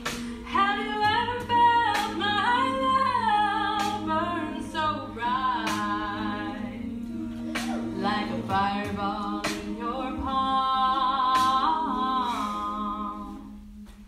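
A cappella group singing: a lead voice carries a moving melody over sustained background voices and a low bass line, with short sharp percussive hits throughout. The singing drops off near the end.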